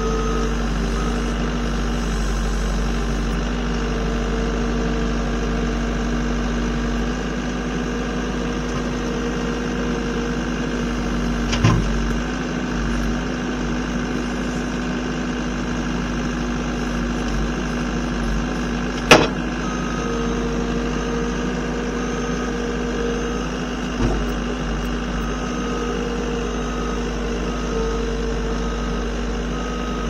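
An engine running steadily at an even speed, with three short sharp knocks about twelve, nineteen and twenty-four seconds in.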